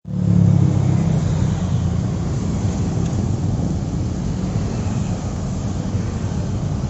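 Steady road traffic noise from a stream of motorcycles passing on a busy highway: a low rumble of engines and tyres under an even hiss, slightly louder in the first second.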